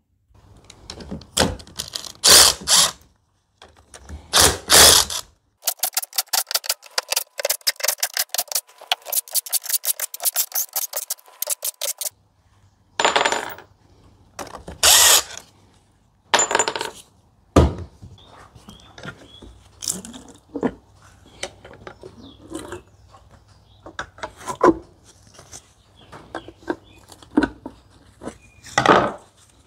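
A Ryobi cordless drill-driver run in short bursts, backing the cover bolts out of a Tuff Torq K46 hydrostatic transaxle casing, with a stretch of rapid, even clicking lasting about six seconds. In the second half, scattered knocks and clinks of bolts and tools being handled.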